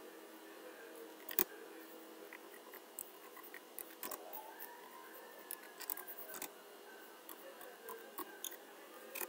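Computer keyboard keys clicking at an irregular pace as a short message is typed, with one sharper, louder click about a second and a half in.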